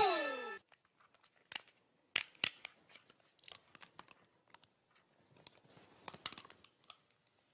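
The theme music ends in a falling slide, then faint scattered crunches and crackly clicks as a man bites and chews on a white mobile phone held at his mouth.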